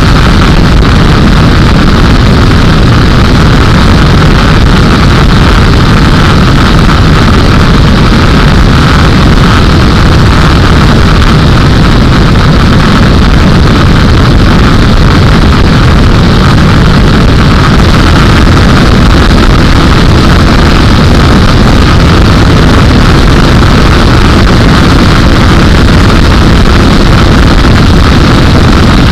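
Light aircraft's engine and propeller running steadily in cruise flight, a loud, unchanging drone.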